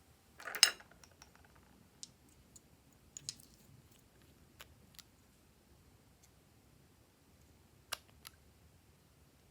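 Small objects being handled in slime-making: a short rattling clatter about half a second in, then scattered light clicks and taps, a couple of them in quick pairs.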